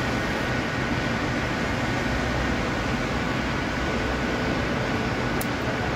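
Steady mechanical drone with hiss and a faint high whine, as of running workshop machinery or ventilation, with one faint tick near the end.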